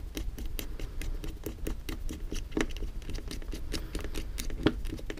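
Small machine screw being turned by hand with a long screwdriver into a robot arm bracket: a dense, irregular run of light clicks and ticks, with two louder clicks about two and a half and four and a half seconds in.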